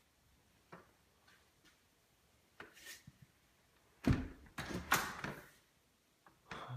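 Scattered light knocks and shuffles of someone moving through a room with a handheld camera, then a louder thump and rustling about four to five seconds in.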